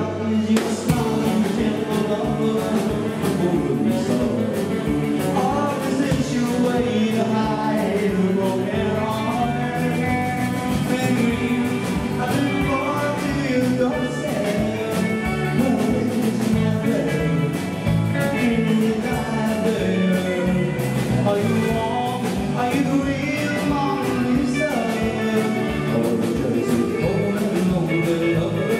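Live rock and roll band playing: electric guitars, bass guitar and drum kit, with a steady beat.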